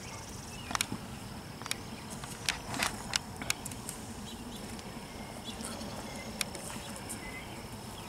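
Honeybees buzzing steadily over an open hive, with a few sharp wooden clicks and knocks in the first half as a frame is pried loose and lifted from the box.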